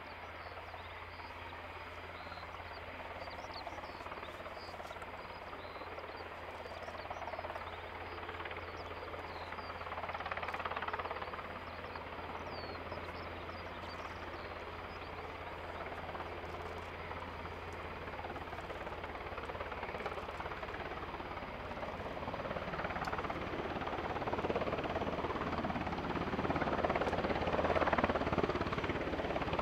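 Swedish Army NH90 (Helikopter 14) twin-engine military helicopter hovering in on approach, a steady rotor and engine drone that grows steadily louder as it comes closer.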